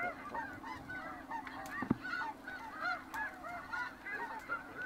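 A large flock of snow geese calling overhead, a dense chorus of many overlapping short, yelping honks, with a low steady hum underneath. One sharp knock stands out about two seconds in.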